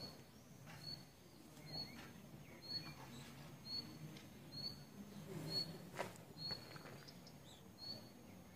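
A bird chirping faintly outdoors, one short high note about once a second, over a low distant hum. There is a single sharp click about six seconds in.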